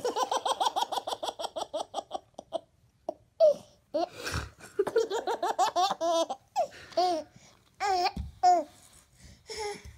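Baby laughing: a long run of quick, rhythmic giggles for about the first two seconds, then a string of shorter separate laughs and squeals.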